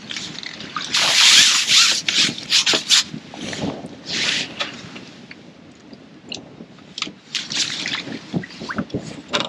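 Water splashing and sloshing in irregular bursts, the loudest about a second in, from a small skimmer bream being played in at the surface of the lake.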